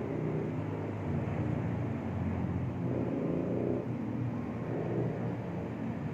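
Steady low rumble of background noise with a wavering hum in it, with no distinct events.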